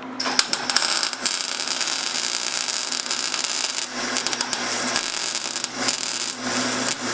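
Wire-feed (MIG) welding arc crackling as a steel plate is tack-welded onto a fabricated quarter-inch steel crankcase. It runs steadily for several seconds, with brief breaks about four seconds in and again near six seconds.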